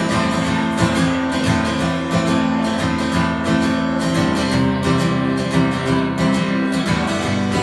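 Acoustic guitar strummed in a steady rhythm, playing an instrumental break between choruses of a country song, with no singing.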